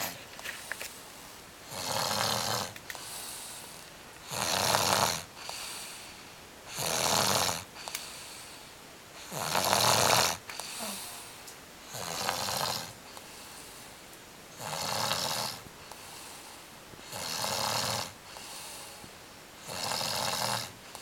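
A sleeping baby snoring loudly, with a rough, rasping snore on each breath about every two and a half seconds and quieter breathing in between.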